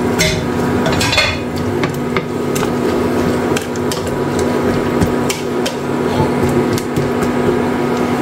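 Kitchen cooking sounds: a steady hum with scattered, irregular light knocks and clicks of cookware.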